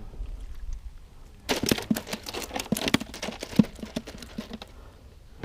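A burst of crinkling and rustling with quick clicks and knocks, starting about one and a half seconds in and lasting about three seconds.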